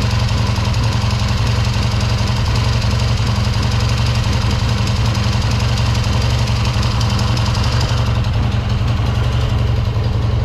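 1970 Triumph T120R Bonneville's 650 cc parallel-twin engine idling steadily on a newly fitted, static-timed Boyer Mark IV electronic ignition.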